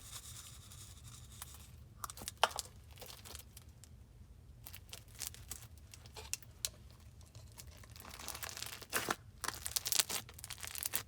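Medium foam bead crunch slime being squished by hand, giving scattered crackles and small pops, busiest about eight to ten seconds in.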